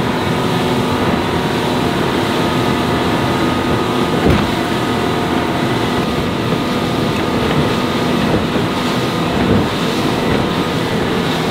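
Haines Hunter 680 fishing boat under way at speed: a steady engine drone mixed with water rushing along the hull and wind on the microphone. There is a single thump about four seconds in.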